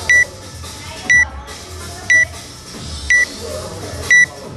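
Countdown timer beeping once a second, five short high beeps, counting down the last seconds before the start of a workout.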